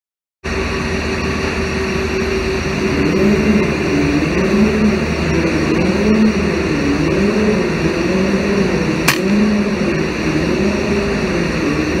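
Steady machinery drone with a low hum that wavers up and down in pitch, starting after a moment of silence. A single sharp crack about nine seconds in, the shot of a .177 FX Dreamline air rifle at the perched pigeon.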